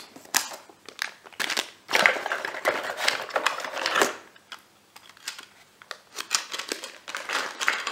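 Plastic bags rustling and crinkling as bagged plastic gears are handled, with irregular light clicks and knocks. The handling is busiest a couple of seconds in and quiets down around the middle.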